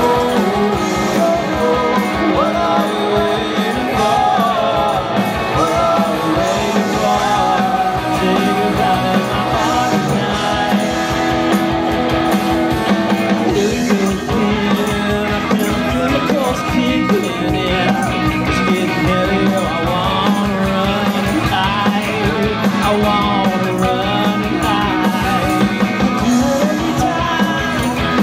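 Live rock band playing a song: electric guitars, bass guitar and drum kit, with a lead vocal singing over them.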